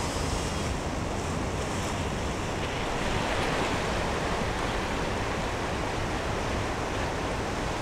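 Ocean surf washing steadily onto the shore, with wind rumbling on the microphone. The wash swells a little about three seconds in.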